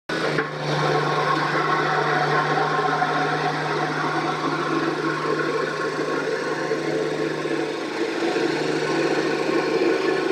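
Road roller's engine running steadily, with a constant low hum that briefly weakens about eight seconds in.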